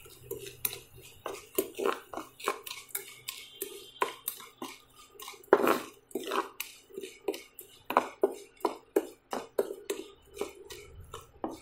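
A wooden spatula stirs fried garlic and chili through a sticky fish-sauce glaze in a nonstick frying pan, making irregular scrapes and light knocks against the pan, about two or three a second. A couple of louder knocks come around the middle.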